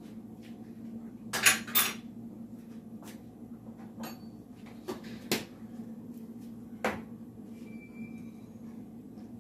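Kitchen utensils and dishes clinking and knocking: two sharp clinks about a second and a half in, then several lighter knocks, over a steady low hum.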